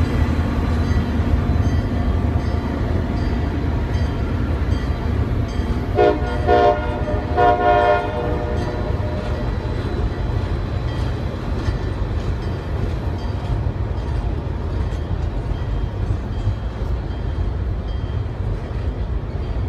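Passenger cars rolling across a steel truss bridge: a steady low rumble with regular clicking of the wheels over the rail joints. Short horn blasts sound about six to eight seconds in.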